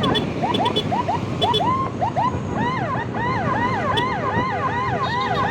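Electronic emergency siren on a yelp pattern: quick rising chirps for the first couple of seconds, then fast rise-and-fall sweeps about three times a second, over traffic and road noise.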